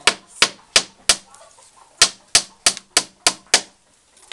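Hammer tapping on a rattan strip bound around a bamboo pole: four sharp taps about three a second, a pause of about a second, then six more at the same pace.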